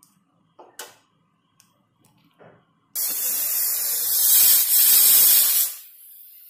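A few light clatters, then an aluminium pressure cooker letting off steam through its weight valve: a loud, even hiss that starts about three seconds in and lasts about three seconds.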